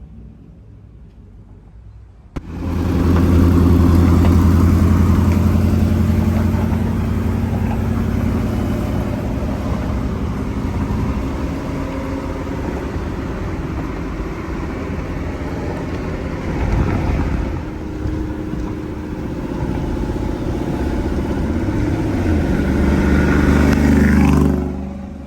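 5.3-litre V8 pickup with a true dual Borla XR1 exhaust and X-pipe starting up about two seconds in, then running with a steady deep exhaust note. The note swells slightly near the end, then falls off.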